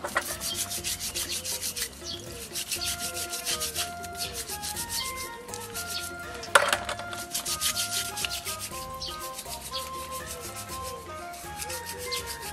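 A brush scrubbing river snail shells in quick, rhythmic strokes. There is a single sharp knock about six and a half seconds in.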